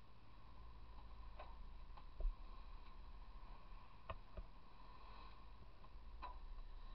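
Faint steady low rumble and thin hum of a boat under way at sea, with a few scattered light clicks and creaks and one soft low thump a little over two seconds in.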